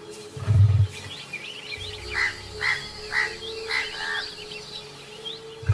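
A bird, shown as a rufous treepie, calling a run of about five short, evenly spaced notes over two seconds, with fainter higher chirps around them. A short low thud sounds about half a second in, over a faint steady low drone.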